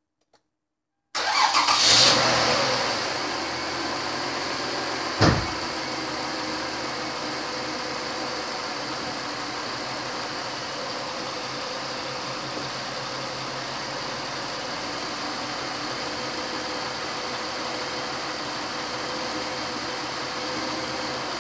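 Toyota Sienna V6 starting for the first time after an engine rebuild: it catches abruptly about a second in, revs up briefly, then settles into a steady idle. There is a single sharp knock about five seconds in. It runs smoothly, in very good condition and without the noise that was feared.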